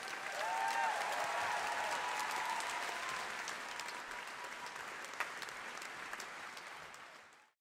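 Concert audience applauding, with some cheering in the first seconds; the applause fades out near the end.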